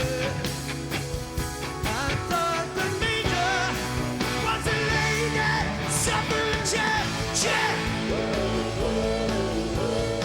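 Live rock band performance: a lead voice singing over electric guitars, bass and drums.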